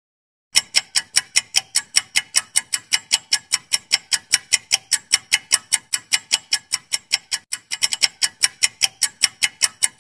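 Clock-style ticking sound effect of a quiz countdown timer: rapid, even ticks, about five a second, starting about half a second in after dead silence.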